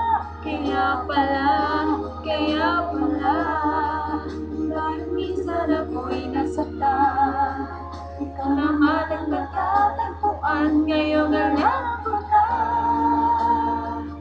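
Music: a woman singing a slow Tagalog love song, her held notes wavering with vibrato.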